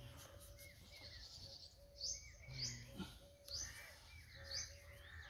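Faint bird calls: several short chirps, about one a second, over a low steady background.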